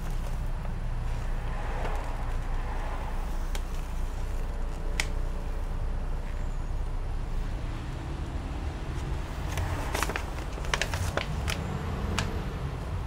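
Paper instruction sheet rustling and crackling as it is handled and turned over, with a cluster of sharp crackles about ten to eleven seconds in, over a steady low background rumble.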